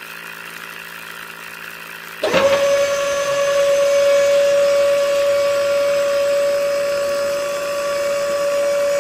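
A small DC hobby motor on a miniature model drilling rig runs with a faint steady hum, then a loud, steady, high whine starts abruptly about two seconds in and holds at one pitch.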